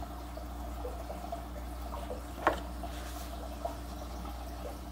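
Aquarium sponge filter bubbling in a gallon glass jar: soft bubbling blips over a steady low hum, with one sharper pop about two and a half seconds in.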